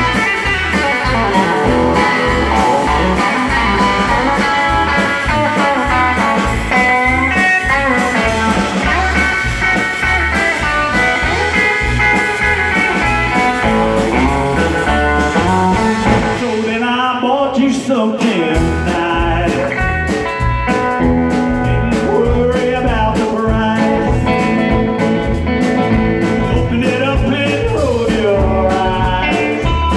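Live band playing a blues-rock tune with electric guitar over a steady beat. There is some singing, and the band makes a short break about halfway through before coming back in.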